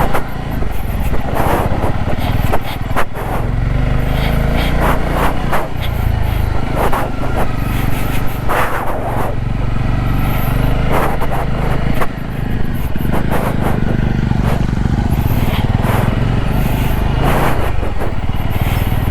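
Motorcycle riding on a rough dirt track: the engine runs steadily under a low rumble, with frequent short knocks and rattles from the bumps.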